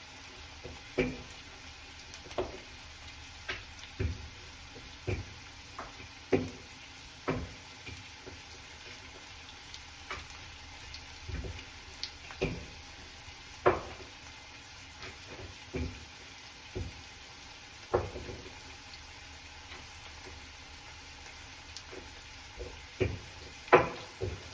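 Kitchen work: irregular short knocks, roughly one a second and some much louder than others, over a faint steady hiss.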